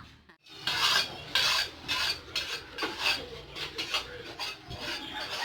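Rough rasping, scraping strokes repeated about twice a second, starting half a second in after a brief hush.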